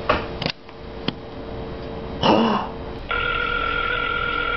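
A few clicks of a cell phone being handled, then a telephone ring tone heard through the phone's speaker: one steady ring about two seconds long, starting about three seconds in, the ringback of an outgoing call.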